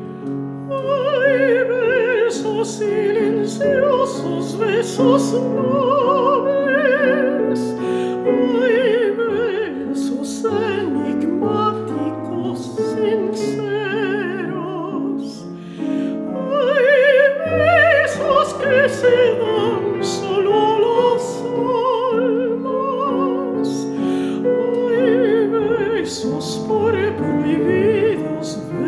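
Classical art song: a mezzo-soprano sings with a wide vibrato over piano accompaniment. The voice comes in about a second in, over the piano, and sings in phrases with short breaks.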